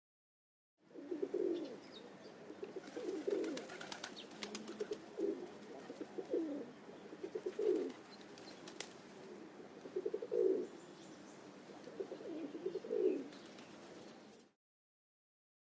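Pigeon cooing: a series of low coos, about one a second, starting about a second in and stopping shortly before the end.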